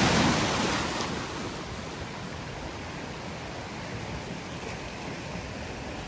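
Sea waves breaking and washing over shoreline rocks. A surge of surf in the first second, then a steady wash.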